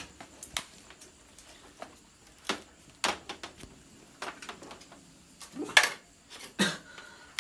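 Irregular clicks and light knocks from hands working on a Honda Wave Alpha 110 motorcycle's plastic bodywork, as the panels are being taken off. The loudest knock comes about six seconds in.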